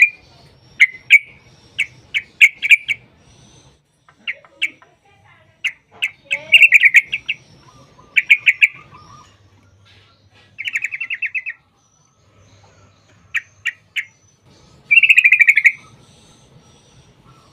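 Yellow-vented bulbul (trucukan) singing: short runs of sharp bubbly notes in phrases with pauses between them, and two fast rolling trills, one about two-thirds of the way through and one near the end.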